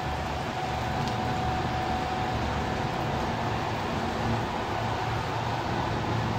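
Steady rainy-day street ambience: an even rushing hiss of rain and wet traffic with a low rumble and a faint steady whine.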